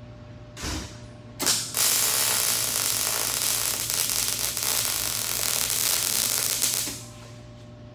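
MIG welder laying a bead on the steel tube roll cage: a short burst at first, then about five seconds of steady arc crackle that stops a second before the end.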